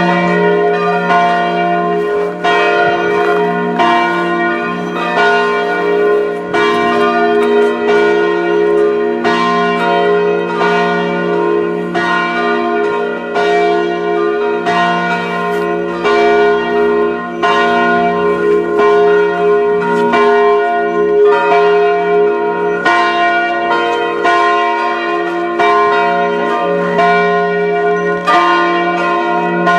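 Several church bells ringing together in a continuous festive peal to announce Christmas. The strikes follow one another in a steady stream, each leaving a long ringing tone over a deep sustained hum.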